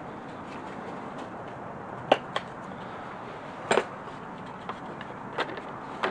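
A handful of sharp clicks and knocks from tools and parts being handled during an engine teardown, over a steady background hiss; the loudest comes about two seconds in.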